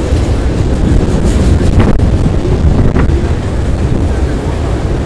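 Freight auto rack cars rolling over a steel trestle bridge: a loud, steady rumble of wheels on rail, with wind buffeting the microphone. Two short sharp sounds stand out, about two and three seconds in.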